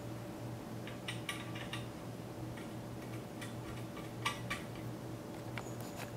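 Light metallic clicks and ticks of radiator mounting screws and washers being handled and set by hand into a computer water-cooling radiator: a quick cluster about a second in, then scattered single clicks, the loudest just past four seconds. A steady low hum runs underneath.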